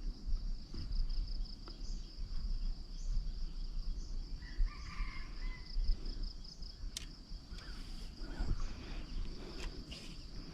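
Steady insect chorus, a high, fast-pulsing trill of crickets or cicadas. A brief bird call comes about five seconds in, and a few sharp clicks follow.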